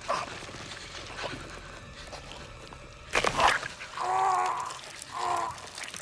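A man's strained, whimpering cries through a hand clamped over his mouth. A sharp rush of sound comes about three seconds in, then two drawn-out pitched cries.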